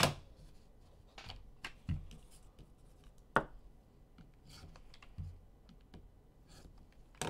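Trading-card boxes and packs being handled on a table: scattered light scratches and clicks, with a sharp knock right at the start and softer knocks every second or two.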